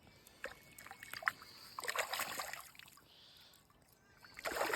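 Water splashing and trickling, with a few small sharp knocks in between.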